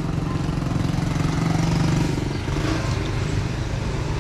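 Engine of a passing motor vehicle: a steady hum that grows louder toward the middle and then fades, over constant street noise.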